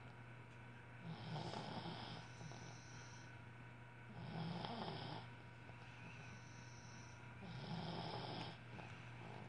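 A sleeping pug snoring: three rasping snores, each about a second long, coming roughly every three seconds.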